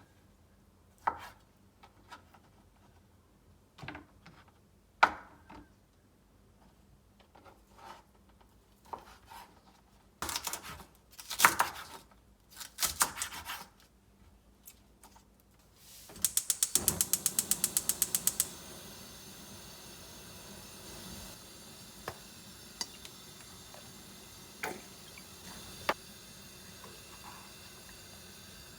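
Dishes and utensils clinking and knocking during food prep. About 16 s in, a gas stove's igniter clicks rapidly for about two seconds, then a steady hiss continues, with a few clinks.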